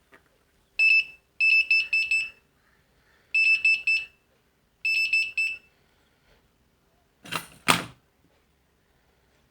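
Piezo buzzer of an IR remote tester beeping in four short stuttering bursts, a single high tone pulsing on and off as a remote's button is pressed. Two sharp knocks follow near the end.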